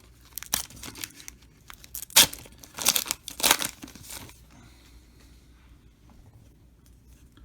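Foil wrapper of a Topps trading-card pack being torn open and crinkled, in a string of sharp tearing and rustling bursts over the first four seconds or so, then dying down to faint handling. The wrapper is tough to tear.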